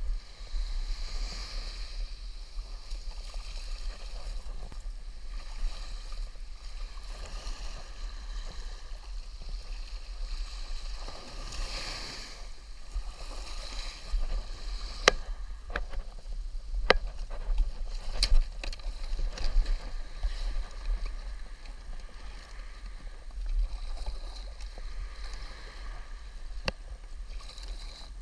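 Water washing and sloshing around a plastic sit-on-top kayak as it is launched through shallow shore wash and paddled out, over a steady low wind rumble on the microphone. A few sharp clicks and knocks come about halfway through, and one more near the end.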